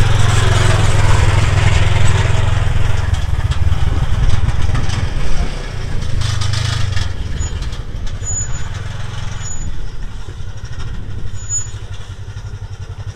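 Military off-road buggy's combustion engine idling with a steady low rumble, easing somewhat about five or six seconds in.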